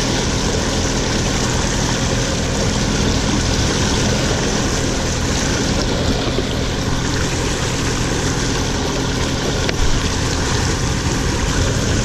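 Motorboat engine running steadily at speed, with a constant rush of wind and water over it.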